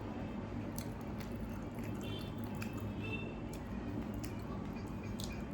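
Wet squishing and small clicks of someone eating panta bhat, water-soaked rice, by hand, with chewing.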